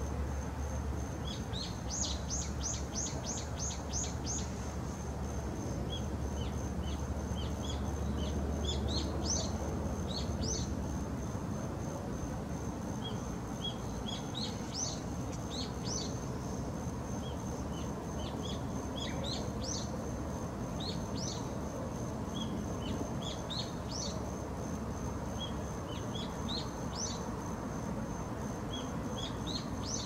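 Birds chirping on and off in short high notes, with a quick run of about eight notes near the start, over a steady thin high-pitched whine and an even outdoor hiss.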